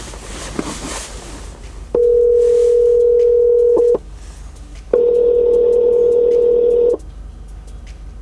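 Telephone ringback tone on a smartphone's speakerphone: two steady rings of about two seconds each, a second apart, the sign that the outgoing call is ringing and not yet answered.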